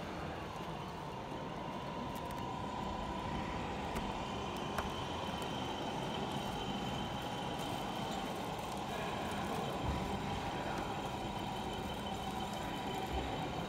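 Radio-controlled model trucks driving: a steady whine of small motors and gearing over the general noise of a busy hall.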